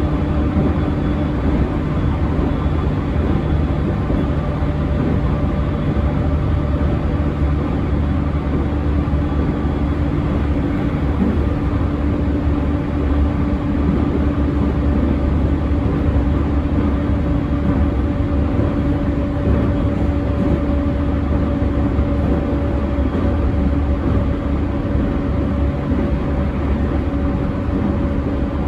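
Running noise inside an unrenovated JR E231-1000 series electric motor car at steady speed: a dense low rumble of wheels on rail with a steady hum held at one pitch. The uploader notes that this car has a stronger low drone than usual.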